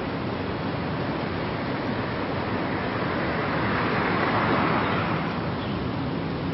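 Steady rushing noise of road traffic mixed with wind on the microphone, swelling for a moment about four seconds in.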